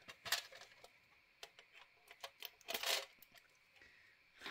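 Scissors cutting the packing tape that holds a tin gift to a magazine: a few faint clicks of blades and handling, then a short scratchy rustle about three seconds in as the taped package comes free.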